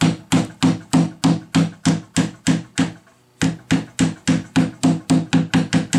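Claw hammer tapping on a bat house's split, bent-down roof overhang to bend it back up into place: a quick, even run of blows, about three a second, each with a short low ring. A brief pause just before halfway, then the tapping resumes a little faster.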